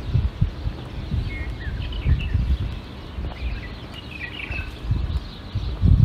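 Small birds chirping among trees: short, high chirps in two clusters, about a second in and again around four seconds in. Beneath them runs a low, uneven rumble with a few louder swells.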